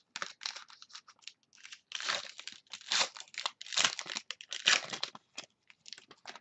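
Plastic wrapping on a trading-card pack being slit and torn open by hand, crinkling in a quick run of short crackles, thickest from about two to five seconds in.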